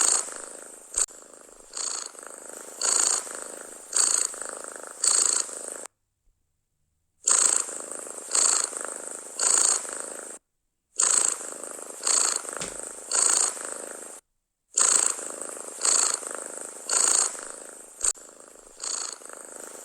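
Domestic cat purring loudly, the purr swelling and easing in a steady rhythm about once a second with each breath. Three short gaps of complete silence break it up.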